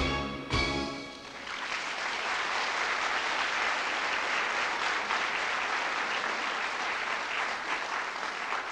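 Music ends on a final accented chord about half a second in, and an audience applauds steadily.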